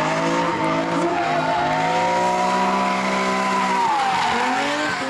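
BMW E30 drift car's engine held at high revs while the rear tyres spin and squeal in a sideways slide. The revs dip briefly about four seconds in, then climb again.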